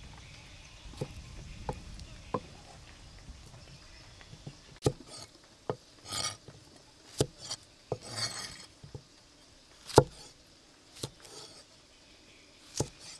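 A large kitchen knife cutting cucumber into spears on a thick round wooden chopping block: about ten separate knocks of the blade striking the wood, irregularly spaced, with two short slicing scrapes through the cucumber in the middle.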